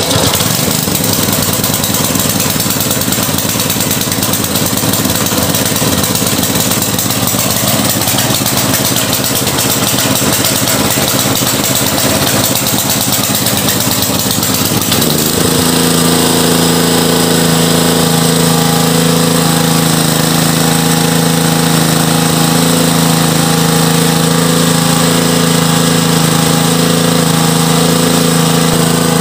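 5 hp single-cylinder gasoline engine of a portable water pump, pull-started and running on its own. It now turns freely after a seized connecting rod was repaired. About halfway through, the running note changes and settles into a steady, even hum.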